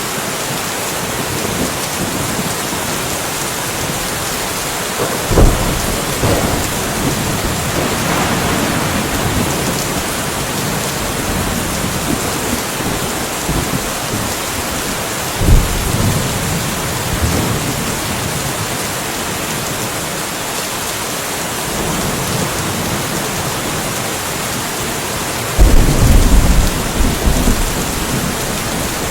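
Steady rain falling, with rolls of thunder: short claps about five and fifteen seconds in, and a longer, louder rumble near the end.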